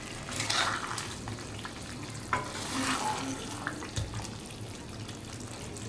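A spatula stirring and scraping fried chicken pieces through oily sambal chilli paste in a pan, in several irregular strokes over a light sizzle.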